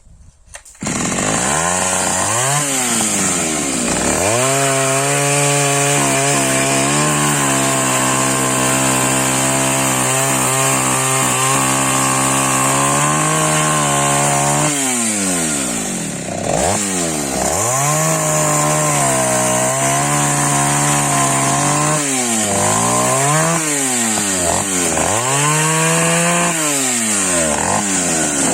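Taiga 214 two-stroke chainsaw comes in loud about a second in, revs up, then holds high revs for about ten seconds as it cuts through firewood. It then drops back and is revved up and down again and again.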